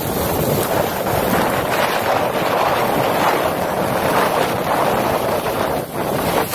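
Strong storm wind buffeting the microphone over the rush of hurricane-driven waves breaking on a rock-and-concrete shoreline, a loud, steady roar of noise.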